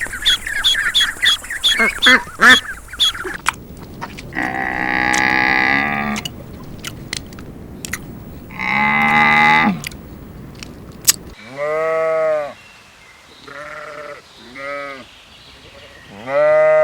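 Rapid, high chirping bird calls for about the first three seconds, then a series of bleats: two long, wavering bleats, followed by several shorter ones, the last the loudest.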